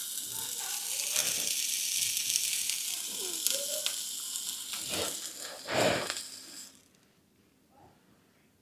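Hot steel horseshoe sizzling and hissing against the hoof wall as it is burned on in hot-fitting, scorching the hoof horn. It swells loudest and then cuts off suddenly about three-quarters of the way through.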